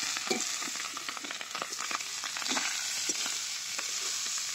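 Boiled rice sizzling in hot oil in a metal karahi, a steady frying hiss with many small clicks and a few scrapes from a metal spatula stirring it.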